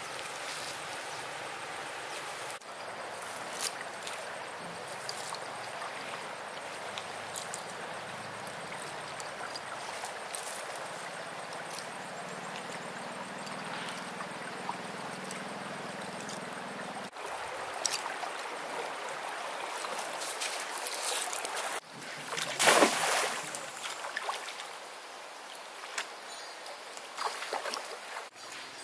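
Shallow stream running steadily, with one louder splash of water about two-thirds of the way through.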